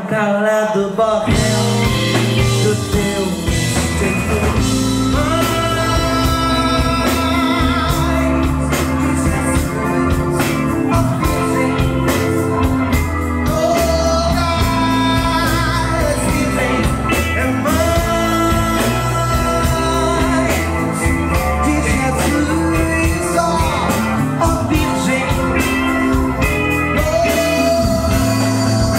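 Live MPB band playing: drums, bass, guitar and keyboard under a melodic lead in long held notes.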